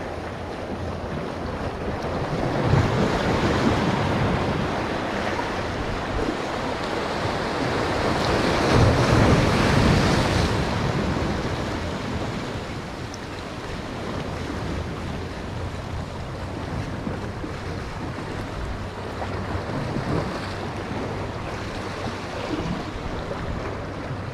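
Sea waves washing and breaking, with wind rumbling on the microphone; the surf swells louder about three seconds in and again around nine to ten seconds, then settles to a steadier wash.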